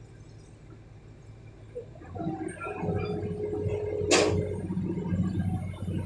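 Hydraulic excavator engine picking up from a low idle to working speed about two seconds in, with a steady whine over it. A single sharp metallic knock comes about four seconds in.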